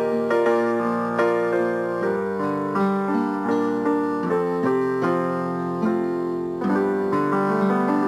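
Instrumental piano music, single notes and chords struck one after another and left to ring.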